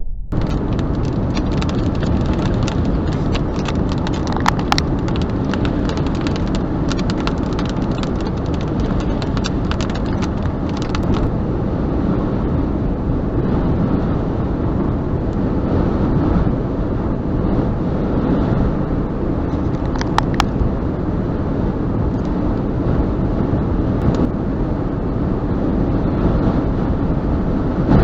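Steady road and wind noise inside a moving car in a severe thunderstorm, with rain hitting the car as a dense patter for about the first eleven seconds, then easing. A few sharper single knocks stand out, one about four seconds in and one about twenty seconds in.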